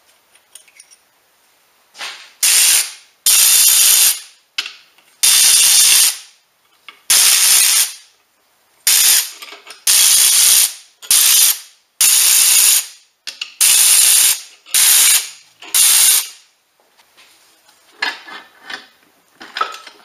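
Cordless electric ratchet spinning out the main-bearing girdle bolts of a Ford Duratec 2.3 four-cylinder block, in about eleven short runs of under a second each. Faint clicks and light clatter follow near the end.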